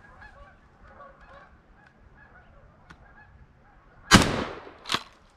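Faint, repeated honk-like animal calls, then a loud sudden noise a little after four seconds that fades out over about half a second, followed by a shorter sharp noise almost a second later.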